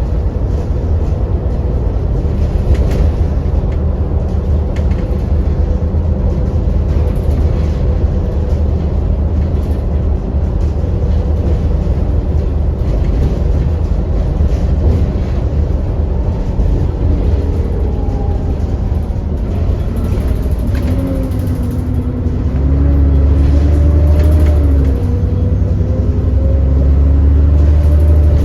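ADL Enviro400 double-decker bus heard from inside while driving: a steady low engine rumble with the high hum that gives the bus its 'hoover' name. About two-thirds through the engine note rises and falls and gets louder as the bus pulls harder.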